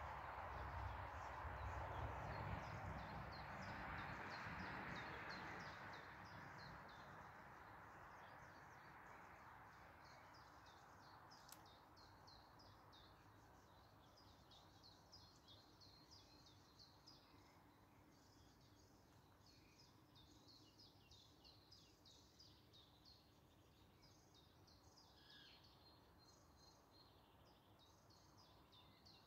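Faint birdsong: small birds chirping in quick short notes, more of them in the second half. Under it, a soft rushing noise fades away over the first six seconds or so.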